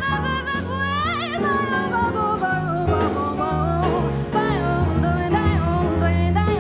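A small jazz band playing live: a woman sings the melody with a wide vibrato about a second in, over walking electric bass, piano and drum-kit cymbals keeping a steady beat.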